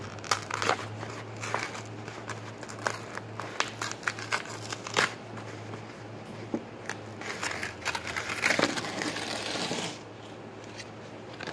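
Tape and plastic sheeting being handled and pressed by hand: irregular sharp crinkles and crackles, with a denser stretch of rustling about eight to ten seconds in.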